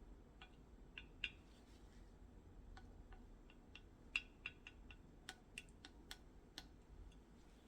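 Near silence with faint, scattered small clicks and ticks, irregularly spaced, two of them sharper: one about a second in and one about four seconds in.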